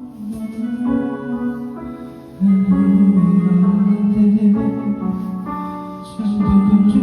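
Karaoke backing track of a piano ballad: sustained piano and keyboard chords. The music grows louder about two and a half seconds in and again near the end.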